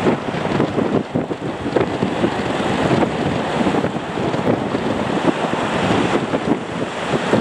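Strong wind buffeting the microphone: a dense, gusting rumble and rush with no steady tone.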